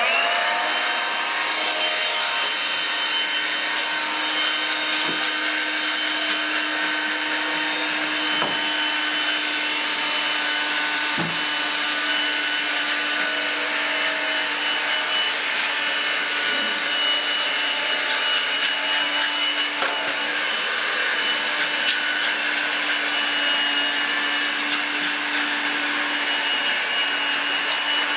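Vacuum cleaner motor running steadily with a high whine. It was switched on just as the sound begins, so its pitch rises briefly before settling. A couple of faint knocks come near the middle.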